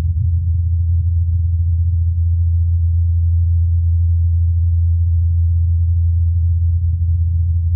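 Steady low hum of NASA's Ingenuity Mars helicopter's spinning rotor blades, a single deep tone over a faint rumble, recorded on Mars by the Perseverance rover's SuperCam microphone.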